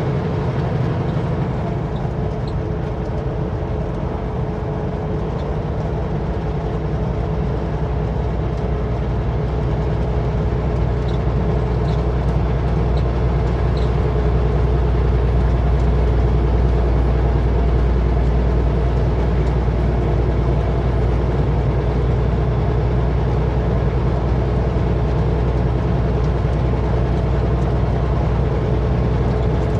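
Kenworth W900L semi truck's diesel engine running steadily at highway speed, with road noise: a continuous low drone.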